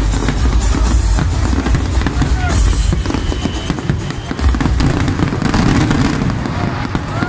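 Aerial fireworks display: shells bursting in a rapid run of bangs over a heavy low rumble, with loud music with a beat playing underneath.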